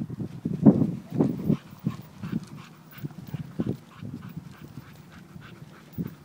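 A dog panting in quick, short breaths, with a few low thumps that are loudest about a second in.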